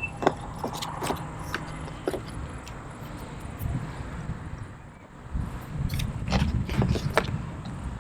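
Hands handling a laptop and its packaging: a scatter of light clicks and taps over a low rumble. One cluster comes in the first two seconds and another about six seconds in.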